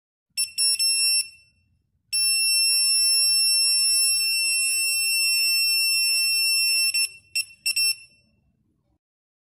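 KAXYUYA K88 RF signal detector's alarm sounding as it picks up a wireless router's signal. It is a high-pitched electronic tone: a few quick beeps, then a steady tone for about five seconds, then two short beeps near the end.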